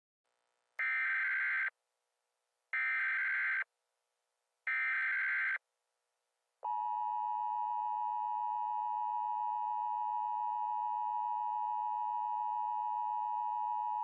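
Emergency Alert System tones: three short bursts of SAME header data screech, each about a second long and two seconds apart, which encode the alert's digital header. About a second after the third, the steady two-tone EAS attention signal starts and holds, announcing the emergency message to follow.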